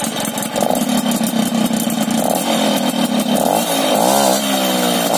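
Two-stroke moped engine running through its repaired Polini expansion-chamber exhaust. It holds a steady speed for about three seconds, then is revved up and let fall and revved again near the end.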